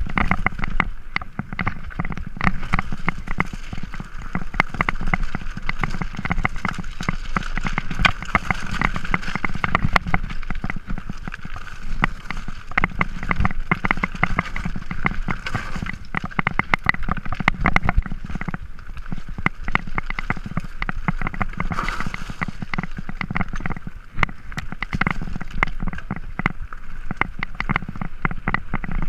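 Mountain bike clattering down a rocky singletrack: tyres on loose stones and the bike and camera mount rattling, a dense run of irregular knocks over a steady low rumble.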